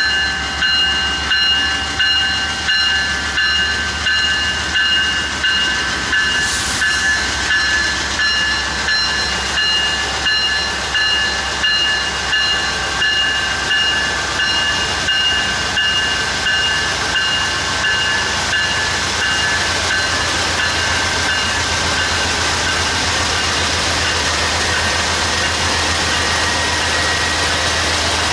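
Freight train cars rolling past, their wheels clacking rhythmically over rail joints, with a steady high-pitched squeal over a low hum. The clacking blends into a smooth, continuous rolling noise about two-thirds of the way through.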